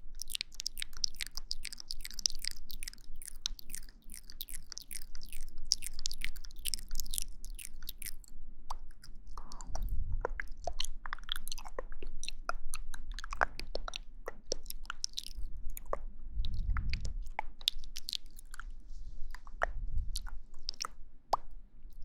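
Close-miked ASMR trigger sounds: a dense run of crisp, crackling clicks for about eight seconds, then sparser clicks with a few soft low thumps.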